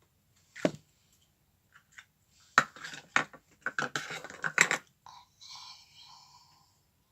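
Slime being squeezed and poked by hand for ASMR: a pop about half a second in, then a dense run of crackling pops and clicks, ending in a short squeaky squelch.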